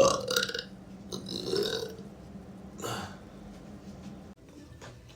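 A man's loud burp trailing off within the first half-second, followed by two shorter, softer sounds about one and a half and three seconds in.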